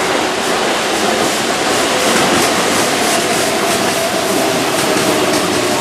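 Keihan 7200-series electric commuter train passing close by, wheels clattering over the rails with a steady rumble. A faint whine falls slowly in pitch.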